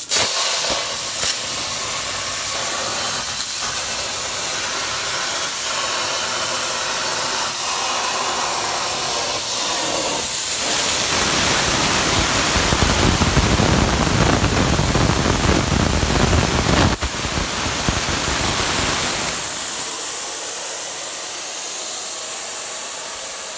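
CNC plasma cutter cutting plate steel: a loud, steady hiss of the cutting arc and air, becoming louder and fuller about ten seconds in and dropping back again about nine seconds later.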